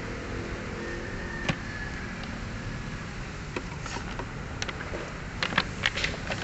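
Hard plastic clicks and knocks as an air filter box housing and its intake duct are pushed and clipped into place by hand, scattered at first and bunching into a quick run of clicks near the end, over a steady low hum.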